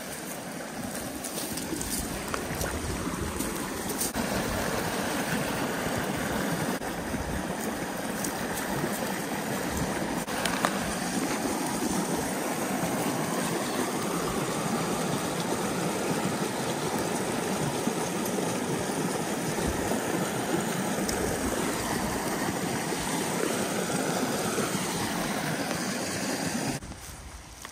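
Small spring creek rushing over a shallow riffle of stones, a steady rush of water close by that drops away suddenly near the end.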